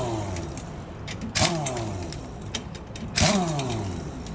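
Pneumatic impact wrench on the RV's wheel lug nuts: short bursts of rattling hammering about every two seconds, each followed by a whine that falls in pitch as the tool spins down.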